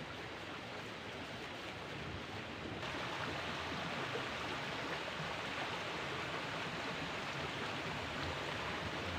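Steady rushing of a small, fast-flowing muddy river, growing louder about three seconds in.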